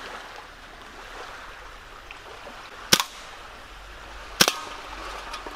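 Umarex Legends M712 CO2 blowback BB pistol (a Mauser C96 replica) firing two single shots, each a sharp crack, about a second and a half apart.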